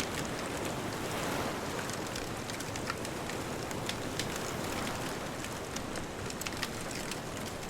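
Wood bonfire crackling, with frequent sharp pops and snaps scattered throughout, over a steady wash of distant ocean waves that swells slightly about a second in.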